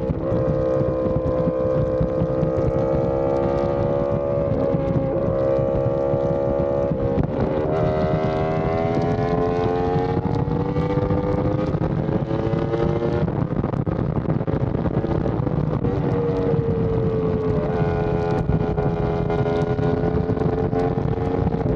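Yamaha R1M's crossplane inline-four running through an SC Project exhaust under way on the highway, its note rising steadily for several seconds, dropping sharply about two-thirds through as the throttle is eased or a gear changes, then holding steady. Wind rush underneath.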